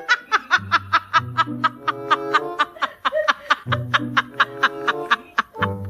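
Background music: quick, evenly spaced staccato notes, about five a second, over held bass notes and chords.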